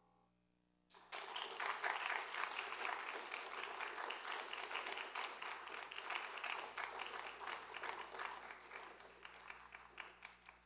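The last ring of a piano chord fades out. Then audience applause breaks out about a second in, dense steady clapping that thins and tapers off near the end.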